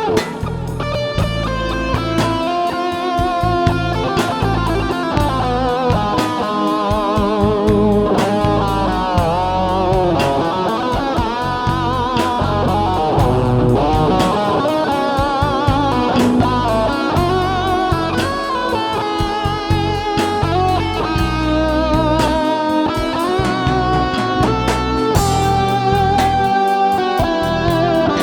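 Electric guitar playing a lead melody with string bends and vibrato over a bass and rhythm backing.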